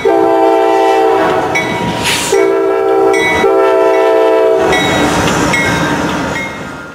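A CSX freight diesel locomotive's multi-chime air horn sounding in several long blasts with short breaks as the train passes close by, over the rumble of the locomotives and rolling wheels; the horn fades away near the end.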